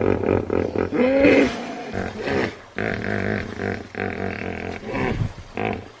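Hippopotamus calling: a rapid run of pulsed grunting calls, then a short call that rises and falls in pitch about a second in, followed by longer, deeper grunting calls.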